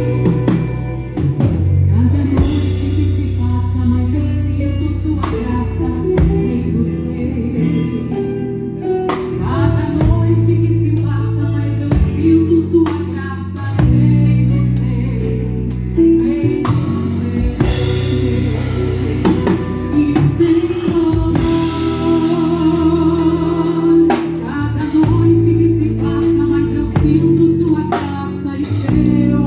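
Gospel song sung by vocalists over a live band, with sustained bass notes and drum hits under the voices.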